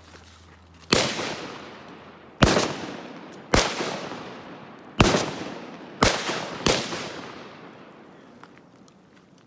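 M4-style rifle fired in six single shots at an uneven pace, the last two close together, each crack followed by a long fading echo.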